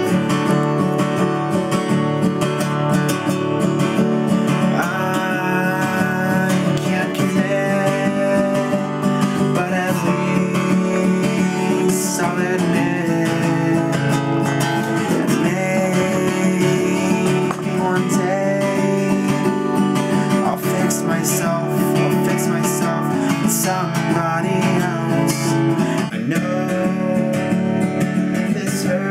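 Acoustic guitar strumming chords steadily through an instrumental passage of a song.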